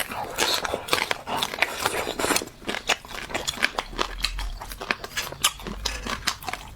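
Close-miked chewing of crispy air-fried fish: a rapid, irregular run of crunches and sharp wet clicks of the mouth.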